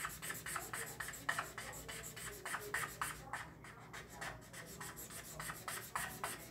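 Green Expo dry-erase marker scribbling back and forth on paper, colouring in with quick, even strokes, several a second.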